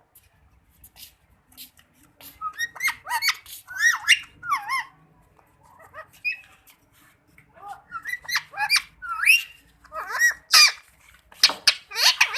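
Indian ringneck parakeet giving quick, squawking calls that rise and fall in pitch. The calls come in two bouts, with a short lull in the middle.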